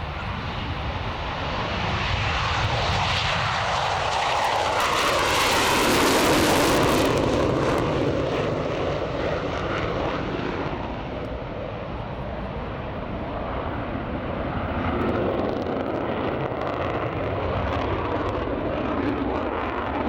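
Panavia Tornado IDS's twin RB199 jet engines making a pass: the noise builds to its loudest and harshest about six seconds in, then eases off into a steadier, lower rumble.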